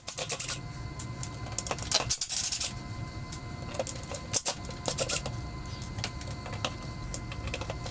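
Power drill backing screws out of the underside of a wooden chair seat, its motor running in short bursts: briefly at the start, for under a second about two seconds in, and twice more around four to five seconds.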